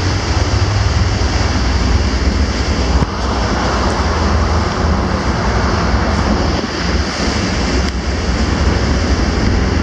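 Wind buffeting the microphone over the rushing, churning wake and swell behind a ferry, with a steady low rumble underneath.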